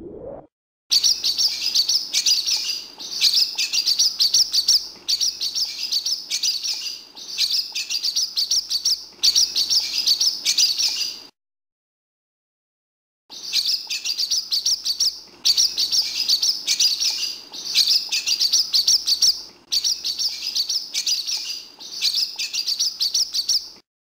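Swallow twittering: quick runs of high chirps in phrases of about a second and a half, each followed by a short break, with a full pause of about two seconds midway.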